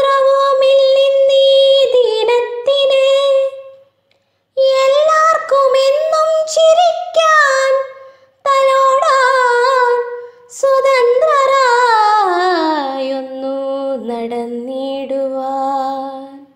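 Solo woman's voice singing a Malayalam poem (kavitha) in long, drawn-out held notes, in several phrases with short breaks between them. Near the end she glides slowly down in a wavering run to a lower note and holds it.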